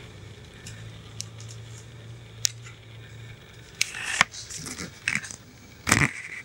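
Hollow plastic cat toy being pushed and slid on a tile floor by hand: scattered clicks and knocks of plastic, with a heavier thump about six seconds in.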